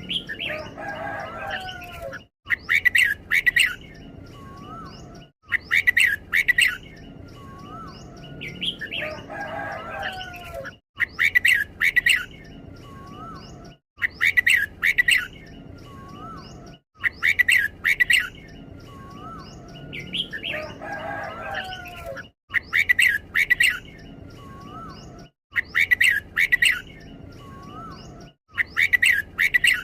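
Red-whiskered bulbul singing: bright whistled phrases delivered in quick doubled pairs, the 'double' song style, repeated every few seconds with a softer chatter between. The song is broken by brief cuts to silence every few seconds.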